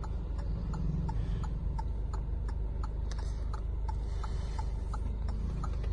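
Indicator flasher ticking evenly, about three ticks a second, over the steady low hum of the Hyundai Verna's 1.6 CRDi four-cylinder diesel idling.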